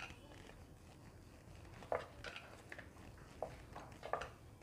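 Wooden rolling pin rolling out soft, oiled dough on a wooden board, with a few faint, soft knocks of the pin against the board in the second half.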